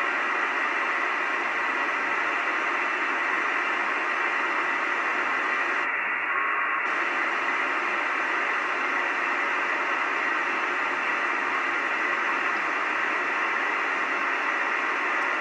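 Two-metre FM radio receiver tuned to the ISS APRS downlink on 145.825 MHz, giving a steady static hiss that stays at an even level throughout.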